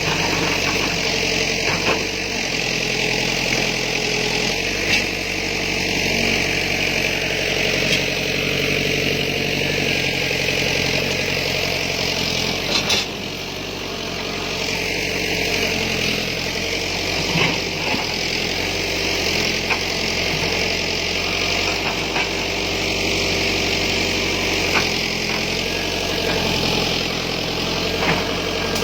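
Backhoe's diesel engine running steadily, with a few short knocks now and then.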